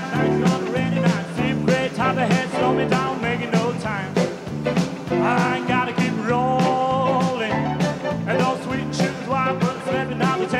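Country-rock band playing with a steady beat of drums, bass and guitars, and a voice singing over it.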